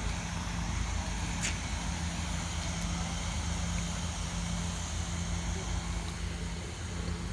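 A machine running with a steady low hum, with one short click about a second and a half in.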